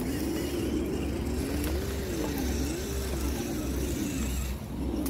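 Electric motor and gearbox of a radio-controlled rock crawler whining, the pitch rising and falling several times as the throttle is worked. A steady low rumble runs underneath.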